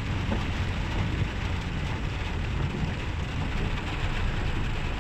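Heavy rain pouring down steadily, an even hiss with a deep rumble underneath.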